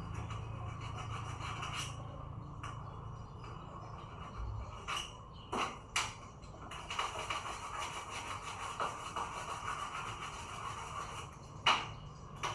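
Rubbing and scraping handling noises with a few sharp clicks, the loudest near the end.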